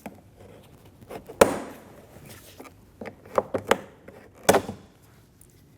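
Plastic door trim piece on a Volkswagen Passat being pried off with a trim tool: a series of sharp clicks and snaps as its clips let go, the loudest about a second and a half in and a few more near the end.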